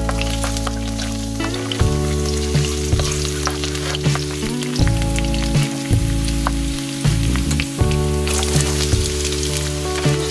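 Chopped garlic, then diced onion, sizzling and crackling in hot oil in a wok, stirred with a spatula.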